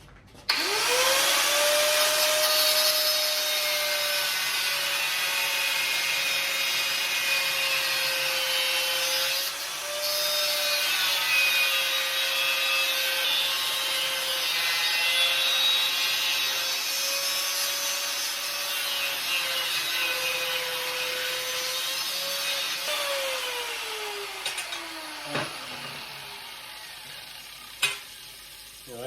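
Angle grinder with a cut-off wheel cutting small steel gusset plates: the motor spins up about half a second in and runs with a steady whine under the cutting noise, dipping briefly about ten seconds in. About 23 seconds in it is released and winds down over a couple of seconds, followed by a few light knocks.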